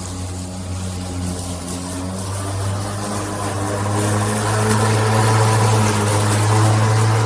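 Greenworks 80V brushless cordless dual-blade lawn mower running with a steady hum of motors and spinning blades. It grows louder over the first few seconds, with a rising rush of air and cut grass from about three seconds in.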